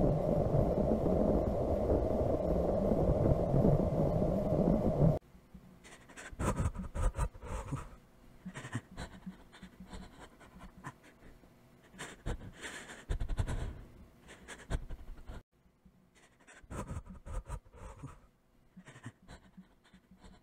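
A steady low hum that cuts off abruptly about five seconds in. After it come quiet, irregular breathy and scratchy sounds in uneven clusters.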